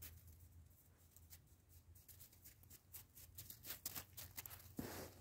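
Near silence with faint, scattered crunches and rustles that become busier near the end, as West Siberian laika puppies move about in snow right beside the microphone.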